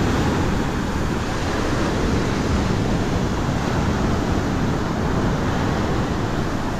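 Surf washing onto a sandy beach, a steady rushing noise, with wind buffeting the microphone.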